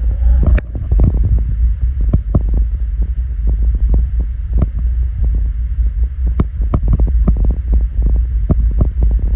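Many small clicks and taps of fishing tackle being handled close to the microphone, over a steady low rumble.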